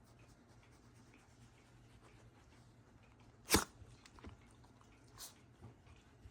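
Shiba Inu giving one short, sharp snort about three and a half seconds in, then a fainter one near the end.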